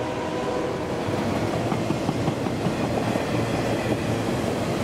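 Enclosed autorack freight cars rolling by: a steady noise of steel wheels on rail, with many small clicks and rattles.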